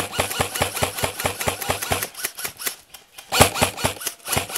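Upgraded G&G Combat Machine airsoft electric gun firing full-auto: a rapid, even rattle of its motor and gearbox cycling. The burst stops about two seconds in, and a second burst starts about a second later.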